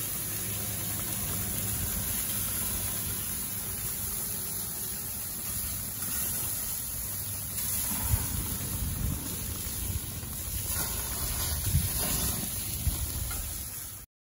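Skewered kebabs sizzling over a gas grill's burners, a steady hiss over a low rumble, with a few light knocks. It cuts off suddenly near the end.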